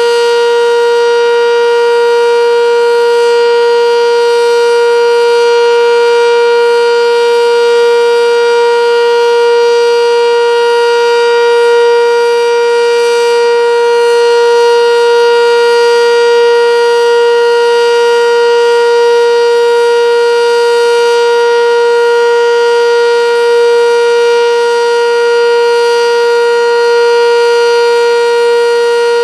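Sentry 10V electromechanical tornado siren sounding the steady full-alert signal. It holds one loud, unchanging pitch with a rich stack of overtones.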